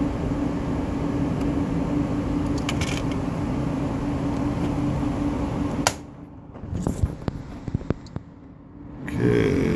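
Steady machine hum with a constant low drone. It cuts off abruptly about six seconds in, leaving a few light clicks and taps, then comes back near the end.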